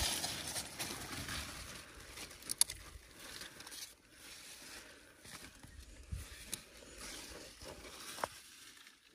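Rustling of leafy crop plants, with scattered light clicks and knocks from someone moving among and handling them.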